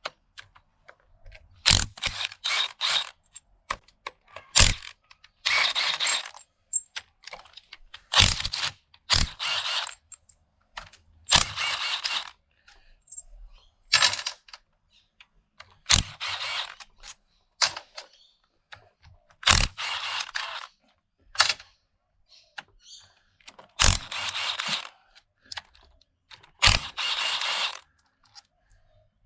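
Hand ratchet clicking in short bursts every few seconds while bolts come out of a BTR four-speed automatic transmission during teardown, between sharp single metal clinks of tools and parts.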